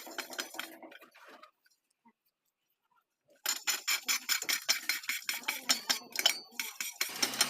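Quick metallic clicks and clinks of hand work on a small engine's cylinder head. They stop for about two seconds, then start again faster, with many sharp taps in a row.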